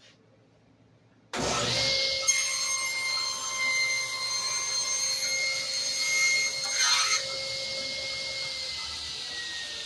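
Powermatic table saw started up about a second in, its blade running with a steady whine while it slices a thin ring off a segmented wooden ring held in a sled jig. The cutting noise stops about seven seconds in, and near the end the whine begins to fall in pitch as the blade winds down.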